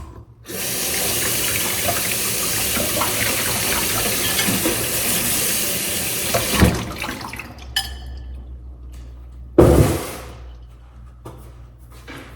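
Water running from a tap for about six seconds, then shut off, followed by a single short thump.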